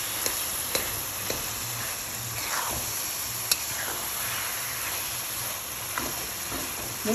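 Mawa (khoya) sizzling as it is roasted and stirred in a heavy kadhai, frying in the ghee it has started to release. A spatula scrapes and taps against the pan a few times.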